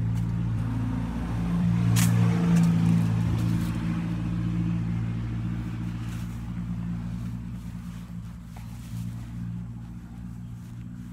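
A motor vehicle's engine running with a steady low hum. It is loudest two to three seconds in and then slowly fades.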